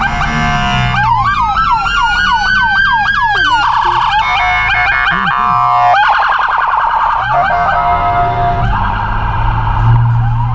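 Loud multi-tone electronic siren cycling through its patterns. It goes from fast warbling chirps into a long rising whoop, then pulsed beeps, a steady held tone a little past the middle, and fast warbling again.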